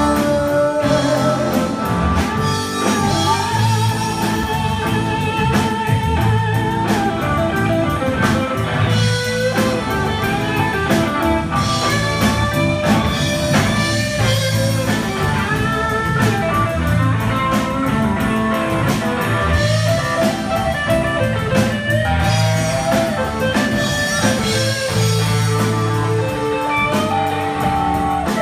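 Live blues band playing with electric guitar, bass guitar, drum kit and keyboard, the electric guitar carrying melodic lines over a steady beat.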